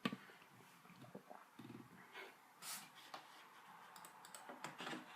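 Faint scattered clicks of a computer mouse and keys, with a short low hum a little under two seconds in.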